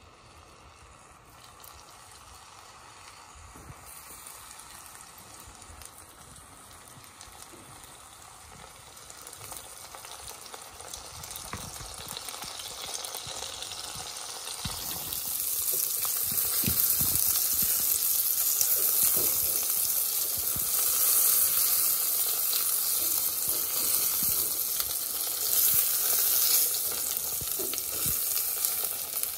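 Mushrooms frying in butter in a nonstick pan: a steady sizzle that grows louder and jumps up sharply about halfway, with a few soft knocks.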